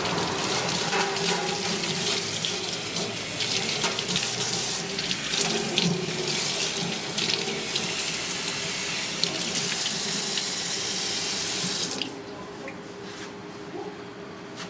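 Water running from a tap into a sink, with scattered light clinks, shutting off abruptly about twelve seconds in.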